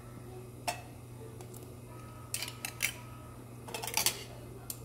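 Metal kitchen scissors snipping through seafood in a hot pot, with tongs clicking against the food and pot: short sharp clicks, one about a second in, then two clusters around two and four seconds in, over a steady low hum.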